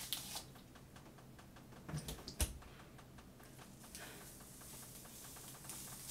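Unbrush detangling brush drawn through wet, conditioner-soaked hair: a faint, rapid crackle of bristles passing through the strands, with one sharper knock about two and a half seconds in.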